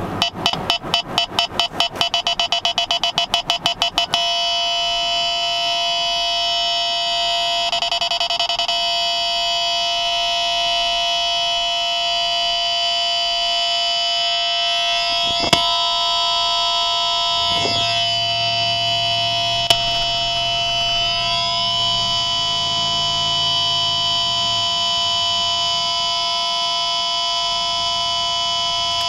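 IX radar detector's K-band alert: rapid beeps for about the first four seconds, which then merge into a continuous steady alert tone. Two brief clicks come about midway.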